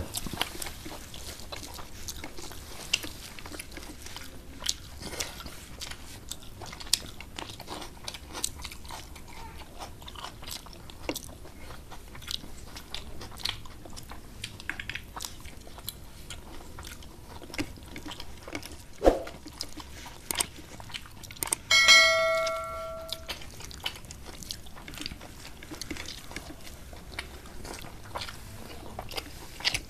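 Close-miked eating sounds: chewing, lip smacks and small mouth clicks from people eating rice and curry by hand. About two-thirds of the way through comes one bright, bell-like ringing clink lasting about a second and a half, the loudest sound.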